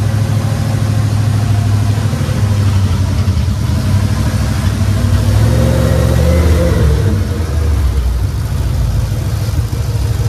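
1989 Dodge half-ton pickup's engine running, its pitch rising briefly around the middle and then settling back.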